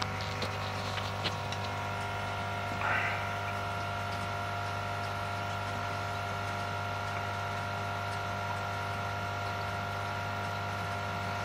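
Steady electrical hum of aquarium equipment, holding several even tones, with a few faint clicks near the start and a short rustle about three seconds in.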